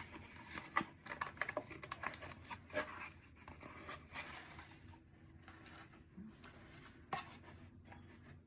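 Rustling, crinkling and light taps of packaging and a box being handled, busy for the first few seconds and then quieter, with one sharper tap about seven seconds in.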